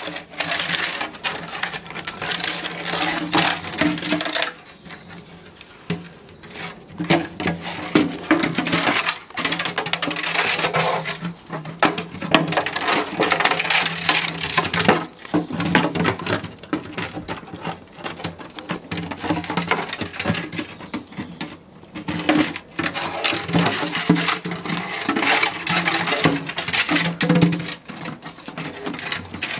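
Hollow plastic watering can clattering, knocking and scraping on stone paving slabs as a Labrador puppy mouths, tips and drags it, in irregular bursts with a quieter lull about five seconds in.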